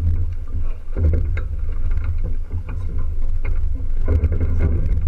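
Wind buffeting the microphone on a small sailboat under way, a steady low rumble, with water splashing and slapping along the hull.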